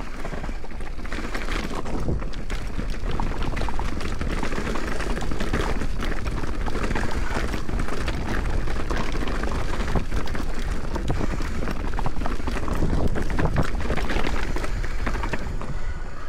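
Mountain bike riding fast down a rocky trail: wind rushing over the camera microphone, tyres on loose stones and the bike rattling, with many sharp knocks.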